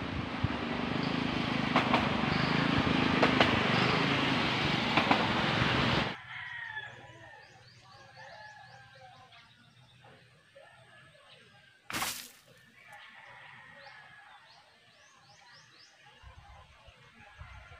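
A loud rushing, crackling noise for about six seconds that cuts off suddenly. It leaves quiet outdoor ambience with small birds chirping in short rising calls and one sharp click about twelve seconds in.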